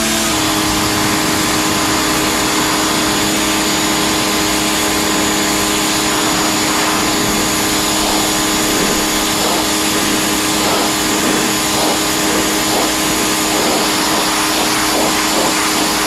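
Electric pressure washer running: the pump motor's steady hum and high whine over the hiss of the water jet, settling to a steady pitch just as it starts. From about six seconds in the spray noise wavers and varies.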